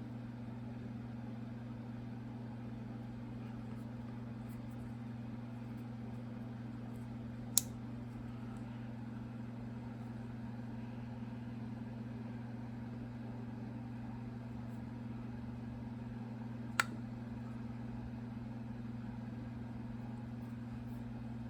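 A steady low hum, broken twice by a single sharp click, the two about nine seconds apart.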